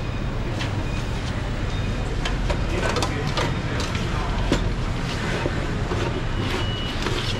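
Fruit being cut and packed by hand: a paring knife clicking and tapping on a plastic cutting board and clear plastic clamshell boxes being handled, many small clicks and knocks over a steady low hum.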